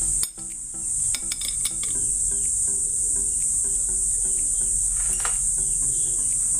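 Steady high-pitched chirring of crickets, with a few light metal clinks from motorcycle fork parts being handled as the damping rod is fitted.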